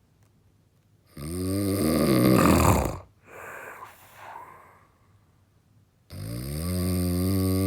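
A person snoring heavily: two long, loud snores with a droning pitch, about five seconds apart, the first breaking into a rattle at its end, with softer breathing sounds between them.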